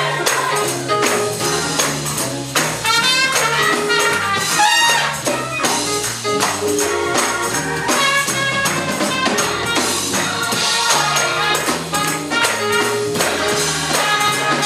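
Music with a steady, driving beat, a moving bass line and a shaking, tambourine-like percussion.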